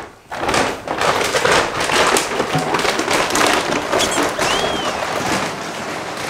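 Dry dog kibble poured from a large bag, a dense, steady patter and rattle of small hard pellets, like rain. A short high whistle-like tone rises and falls about four and a half seconds in.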